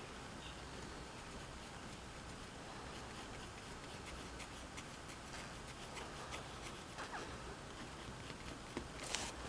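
Faint scratching of a pencil on paper in many quick short strokes as fur is sketched in. A louder, longer stroke comes near the end.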